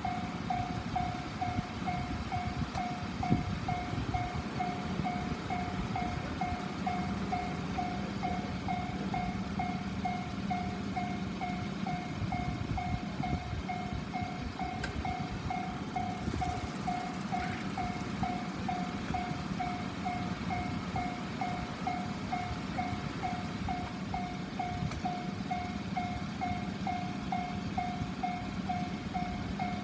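Electronic level-crossing warning bell ringing in an even, rapid beat, with the low rumble of a train at the crossing underneath.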